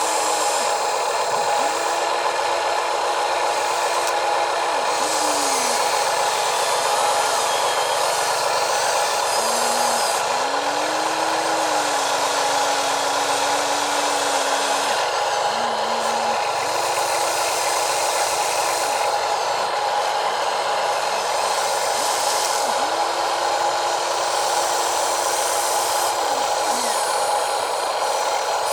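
Small electric motors of radio-controlled toy construction vehicles whining steadily, with a lower motor tone that speeds up, holds and winds down again several times as the models start and stop moving.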